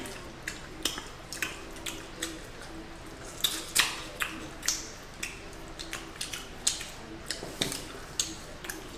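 Close-up eating sounds of chicken wings being eaten: wet chewing, lip smacks and sucking, made up of many short irregular clicks and smacks.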